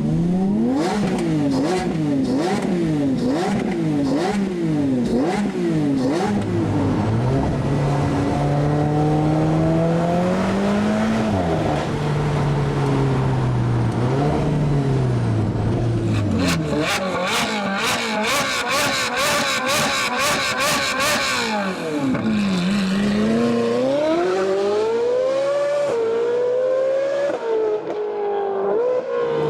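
High-performance car engines being revved hard. About eight quick throttle blips come in the first six seconds, then the engine pitch rises and falls more slowly. A stretch of rapid, even crackling follows, and near the end the pitch drops before climbing sharply as a car accelerates.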